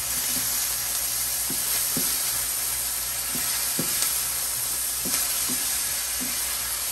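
Garlic chives and shrimp sizzling in a hot frying pan, with a steady hiss. Two wooden spatulas stir them, knocking and scraping against the pan now and then.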